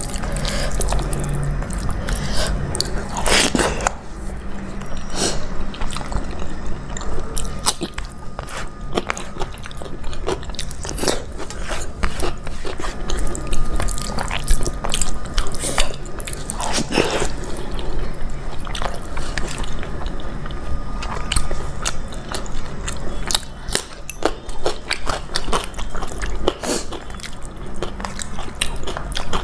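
A person chewing and biting food, with frequent irregular crunches and crackles.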